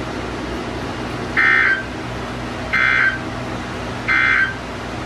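Emergency Alert System end-of-message data bursts: three short digital tone bursts about a second and a half apart, over a steady low hum. They signal the end of the broadcast alert.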